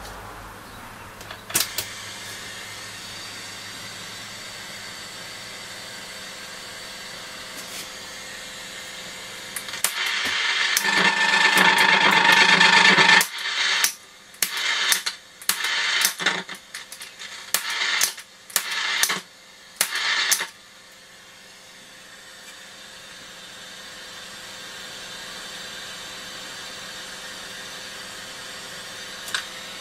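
Nordmende Transita transistor radio's loudspeaker hissing with static, off station. About ten seconds in the static swells loud for a few seconds, then cuts in and out in a string of short bursts before settling back to a steady hiss; a sharp click comes near the start.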